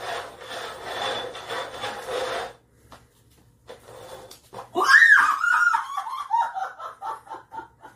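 A woman laughing. A breathy stretch in the first two and a half seconds, then, after a short lull, a loud laugh about five seconds in that starts high and steps down in quick pulses.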